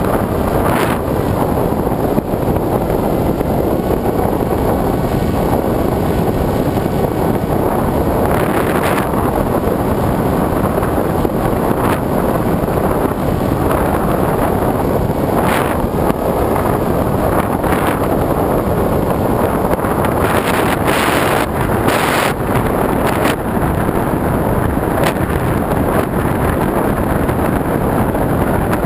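Wind rushing hard over the microphone of a camera carried on an aircraft in flight: a loud steady rush, with brief surges now and then.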